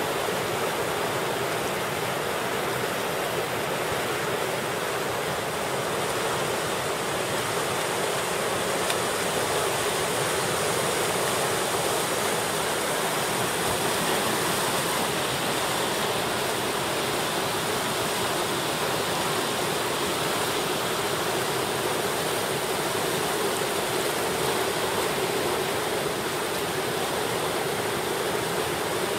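Whitewater rapids of a slalom course rushing steadily, an unbroken hiss of churning water.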